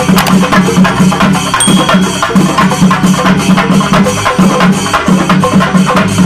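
Shingari melam ensemble of chendas, Kerala cylindrical drums beaten with sticks, playing a fast, dense rhythm over a pulsing low drum beat.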